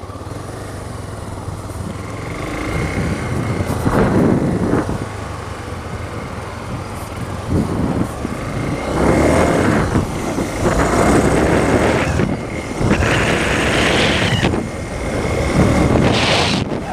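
Honda CB300R motorcycle being ridden off, its single-cylinder engine running under way with repeated loud surges of rushing noise. The rubbing noise from the loose chain-adjuster cap is gone now that the cap is fixed.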